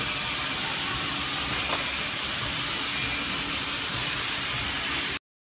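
Steady hissing machine noise with a faint low hum underneath, cutting off abruptly about five seconds in.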